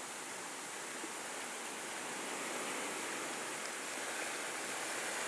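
Steady, even wash of sea water along the shore.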